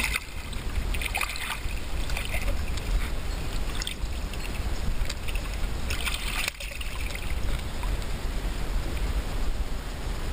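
Water splashing as a hooked barbel thrashes at the surface of a shallow river, in bursts near the start and again about six seconds in, over a steady low rumble of water moving around the camera.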